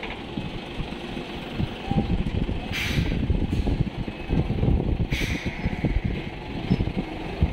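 Diesel engine of a Mitsubishi Fuso cargo truck running as the truck moves slowly at close range. Two short hisses of released air come about three and five seconds in, from its air brakes.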